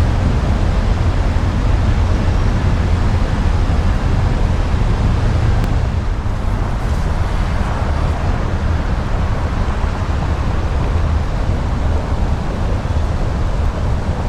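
Steady, loud, low rumbling background noise with no distinct sounds standing out.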